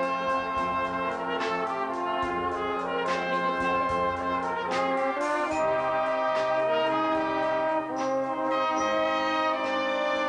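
A brass band playing sustained chords, with sharp percussive hits about every second and a half.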